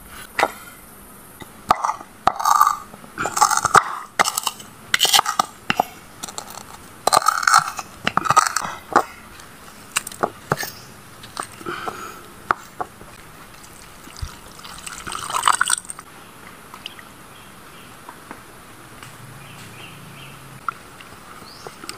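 Liquid sounds in a plastic bowl as a dark dipping sauce is made with chili peppers: irregular short splashes and squelches, with a longer pouring rush about fifteen seconds in. It goes much quieter after that.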